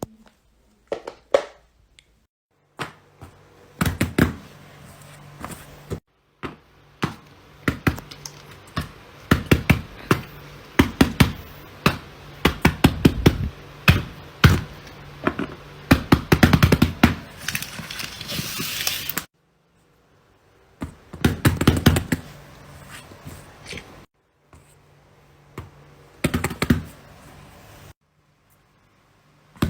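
Fidget toys being clicked, tapped and popped by hand: runs of sharp clicks and taps, some in fast bursts, in several short segments broken by brief silences.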